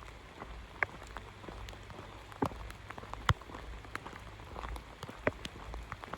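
Rain falling, with individual raindrops landing close by as irregular sharp taps over a soft steady hiss.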